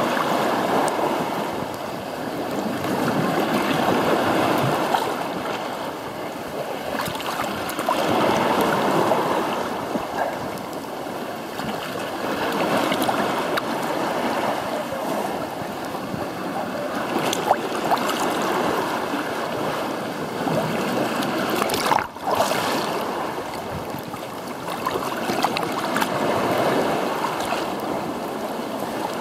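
Small sea waves washing over shoreline rocks, swelling and falling back about every four seconds. One brief knock about three-quarters of the way through.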